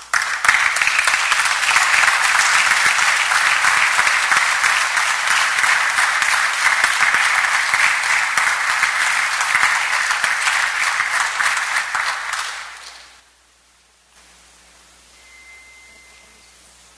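Applause from the assembly members, starting straight away and fading out after about twelve seconds: the chamber applauding the newly elected Speaker. Low hiss follows, with a brief faint high tone near the end.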